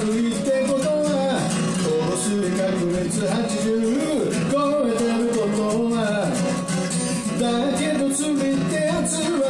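A man singing to his own strummed acoustic guitar, live through a microphone.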